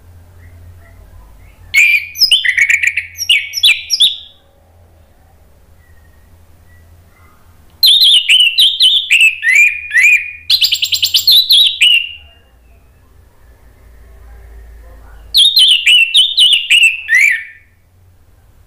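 Orange-headed thrush singing loudly in three bouts of rapid, varied high notes, each a couple of seconds long, with pauses between.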